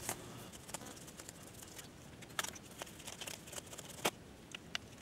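Faint rustling of a paper tissue rubbing over a rubber keypad membrane, with a few small scattered clicks and taps from the handling.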